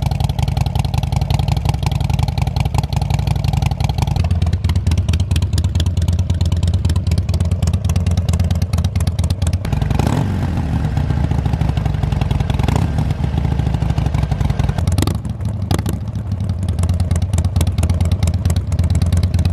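Harley-Davidson Sportster 1200 V-twin running through slip-on mufflers, first with Screaming Eagle slip-ons and then with Rush slip-ons with 1.75-inch baffles. The exhaust note changes abruptly about four seconds in and again at later cuts, as one recording follows another.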